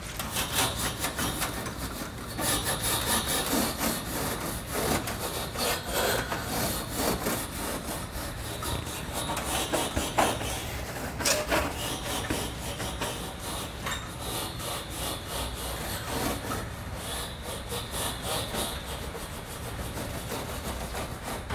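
A stiff plastic-bristled brush scrubbing back and forth over the metal wire condenser coil on the back of a water dispenser, making repeated scraping strokes.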